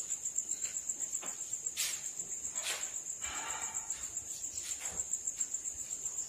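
Night insects trilling in a steady, high-pitched, pulsing drone, with a few faint knocks.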